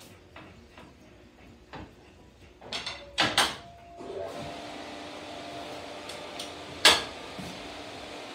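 Several sharp clunks and clicks, a cluster of them about three seconds in and one more near the end, over a steady hiss with a faint hum that sets in about four seconds in.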